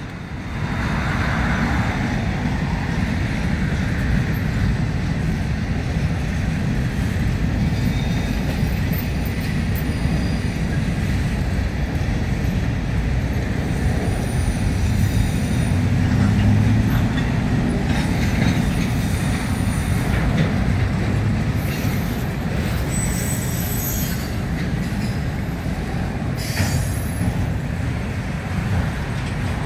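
CSX freight train's cars rolling past: a steady low rumble of wheels on rail, with short high-pitched wheel squeals now and then in the middle and later part.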